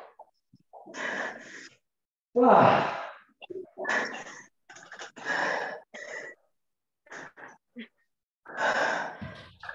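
Heavy, gasping breaths of a person straining through a bodyweight exercise, about seven irregular breaths with the loudest about two and a half seconds in. The sound cuts to dead silence between breaths, as over a video call.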